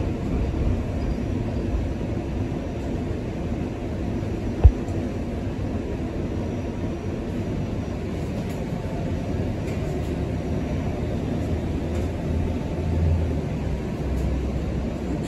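Interior of a moving TTC Flexity Outlook streetcar: the steady rumble of steel wheels on rails and drive motors, with a single sharp knock about four and a half seconds in.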